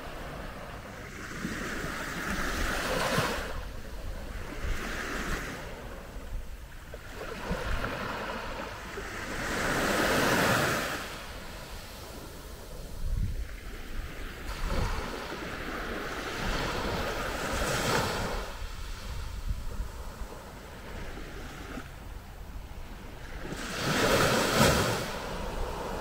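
Calm Mediterranean sea waves washing onto the beach, the surf swelling and fading every few seconds, loudest about ten seconds in and again near the end. A low wind rumble on the microphone runs underneath.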